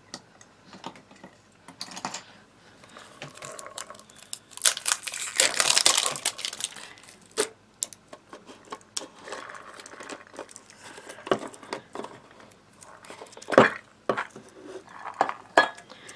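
Hands working at a small slime tub's packaging: a stretch of crinkling about five seconds in, and scattered clicks and taps as the metal screw lid is twisted off the container.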